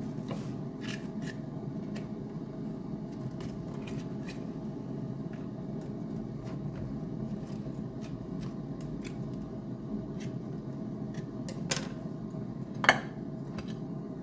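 A knife scraping and clicking around the inside of a metal loaf pan to free a baked cake, then the pan turned over onto a ceramic plate with one sharp knock near the end. A steady low hum runs underneath.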